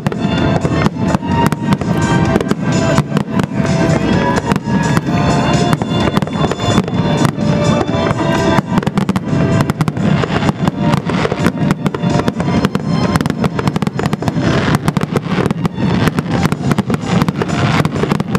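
Fireworks going off in a rapid, unbroken barrage of bangs and crackles, many bursts a second. Music with held notes plays along with them.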